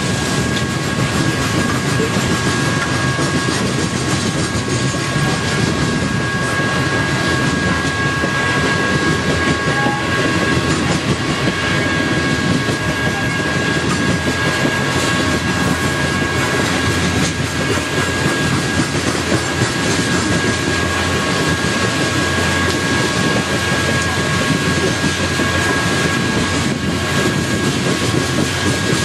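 Loaded coal cars rolling past at speed: steady rumble and rattle of steel wheels on the rails, with clickety-clack as trucks cross rail joints. A faint steady high-pitched tone runs underneath.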